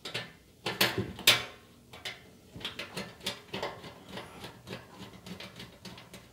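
Screwdriver turning a small screw that holds a panel voltmeter to a UPS's sheet-metal front panel: a few sharp clicks in the first second and a half, then a run of light ticks, about two or three a second, as the screw is driven in.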